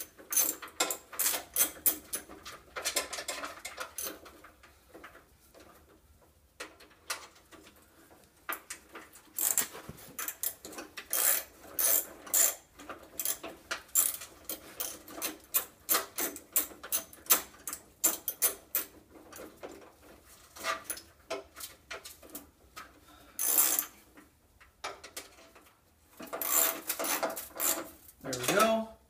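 Hand socket ratchet clicking in spells of rapid clicks with short pauses, as 10 mm nuts are run down on a bracket bolted to the engine's sheet-metal fan shroud, with clinks of metal parts being handled in between.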